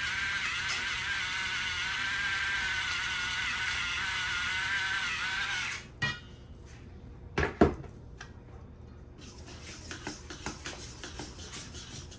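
Electric salt grinder whirring steadily as salt is ground into a bowl of flour, its pitch wavering slightly, then cutting off suddenly about six seconds in. After that come quiet scrapes and clicks as a wooden dough whisk starts stirring the flour in a metal bowl, with one sharp knock about halfway through.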